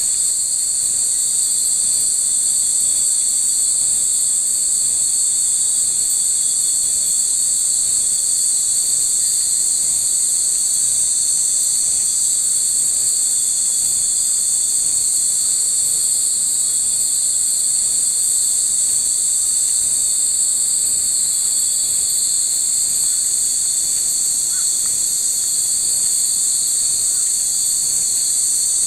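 A steady, shrill chorus of insects: a dense high-pitched buzz that holds unchanged, with no separate strikes or ringing standing out.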